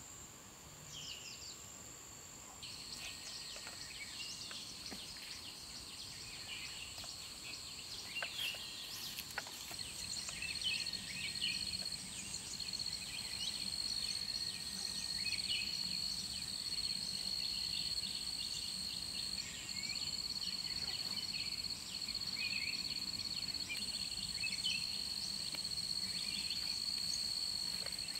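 Forest ambience: insects give a steady, high-pitched drone that grows louder about two and a half seconds in, while birds chirp in short calls throughout.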